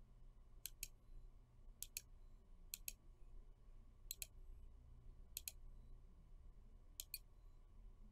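Faint computer mouse clicks over near silence: six quick double clicks, each a press and release, spaced about a second to a second and a half apart.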